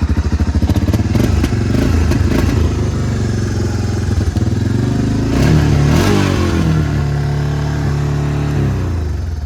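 Honda FourTrax ATV engine running unevenly just after starting. It is revved up briefly about five seconds in, then winds down and dies away near the end. It runs, but not well.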